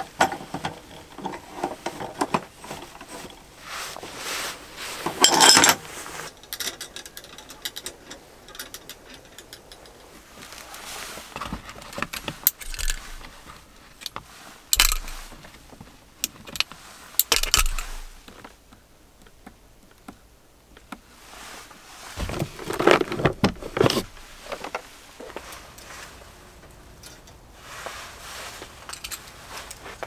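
Camping gear being handled: scattered rustling, small metal clinks and knocks, with the loudest bursts about five seconds in and again just past the middle.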